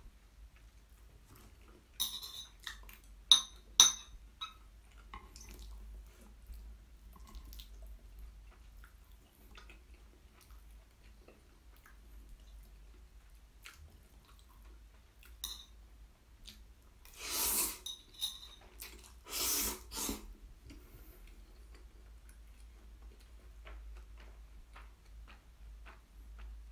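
Metal chopsticks clicking sharply against the dish a few times, with faint chewing, then two short loud slurps of black-bean noodles about two seconds apart.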